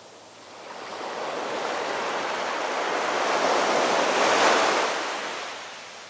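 Rough sea surf: a big wave builds up for several seconds and breaks against the rocks and concrete tetrapods. It is loudest about four and a half seconds in, then dies away.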